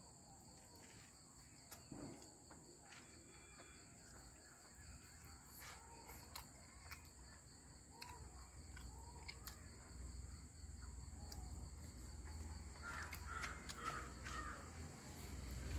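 Faint, steady high chirring of night insects such as crickets, with scattered soft clicks, a few short chirps near the end, and a low rumble that grows louder through the second half.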